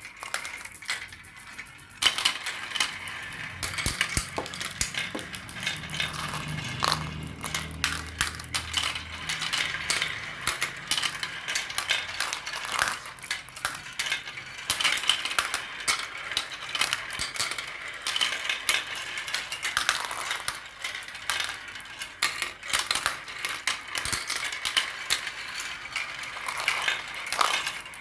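Many marbles rolling and clattering down a marble run track, a dense, irregular stream of small clicks and clinks.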